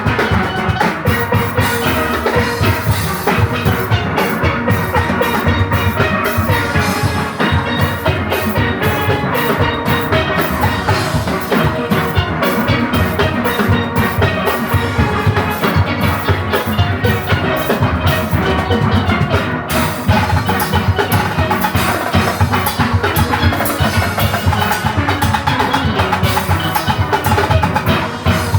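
A steel orchestra playing live: many steelpans ringing out a fast melody and chords over drum kit and percussion.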